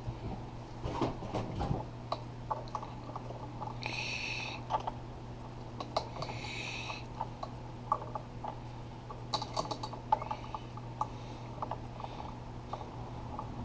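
Metal lathe running with a steady hum, light metallic clicks and clinks throughout, and two brief high squeals about four and six and a half seconds in.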